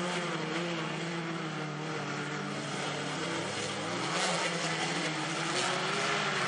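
Engines of several standard-class autocross cars, stock small hatchbacks, racing through a dirt-track corner, their notes rising and falling as the drivers work the throttle.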